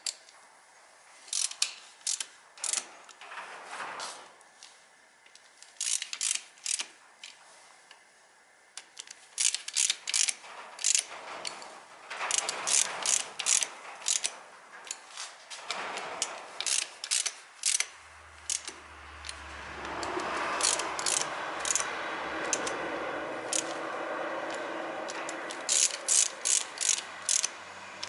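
Ratchet wrench clicking in short runs of quick clicks as bolts are turned. About two thirds of the way in, a steady low hum starts up under the clicking.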